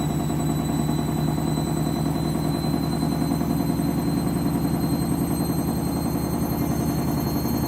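Candy washing machine ramping up on its final spin: a steady low rumble of the spinning drum with a faint high motor whine that slowly rises in pitch, making a noise called strange.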